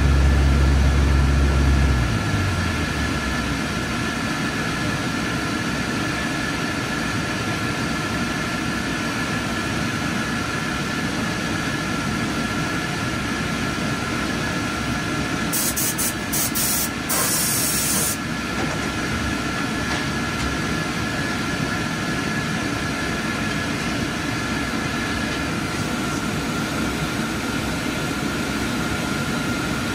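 Steady machinery noise in an IMAX 70mm film projection booth, with two faint steady tones. A deep motor hum stops about two seconds in, and a short burst of high hiss comes a little past the middle.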